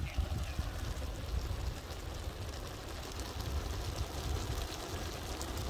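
Steady low rumble and hiss with faint crackling from the fire burning under a large pot of steaming rice.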